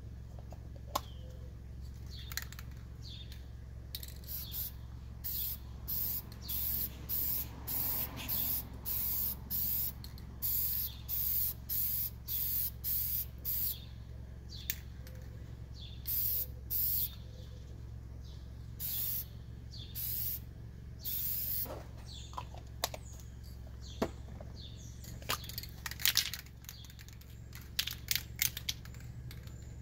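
Aerosol spray paint cans sprayed onto a board in short hissing bursts, one or two a second. After about two-thirds of the way through the spraying stops and the cans are handled, giving a series of sharp clicks and knocks.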